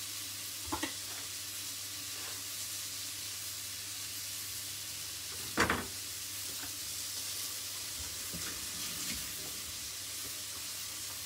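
Onions frying in a pot, a steady sizzle. A few knocks on a wooden chopping board cut through it, the loudest about halfway through, when the kitchen knife is set down.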